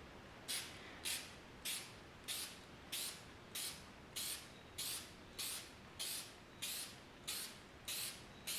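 Aerosol can of spray adhesive being sprayed in short, even bursts of hiss, about fourteen of them at a little under two per second, coating rubber anti-squeak pads.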